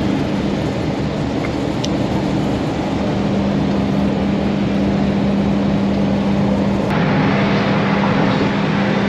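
Cabin noise inside a motorhome driving at highway speed: a steady engine drone with a constant low hum over road and wind noise. The noise shifts slightly and gets a little louder about seven seconds in.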